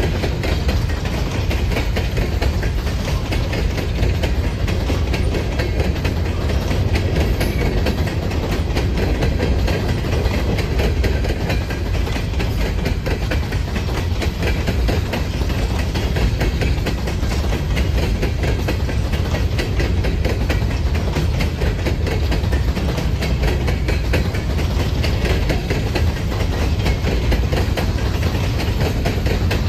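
Freight train cars rolling steadily past on the rails, with continuous wheel-on-rail noise that is heaviest in the low end.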